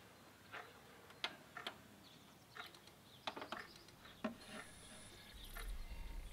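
A few faint, irregular clicks and taps as a JVC micro hi-fi system is switched on and its buttons pressed. A low hum and a faint high whine start from about five seconds in as the unit powers up.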